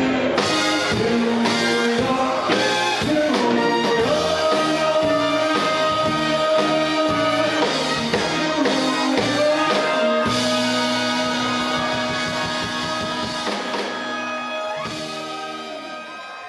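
Live swing band playing a number with a steady drum beat under sustained pitched notes. It fades out over the last few seconds.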